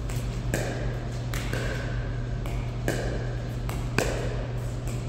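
Pickleball paddles hitting a plastic pickleball back and forth in a warm-up rally: sharp pocks, roughly one a second, some with a short ring and some fainter. A steady low hum runs underneath.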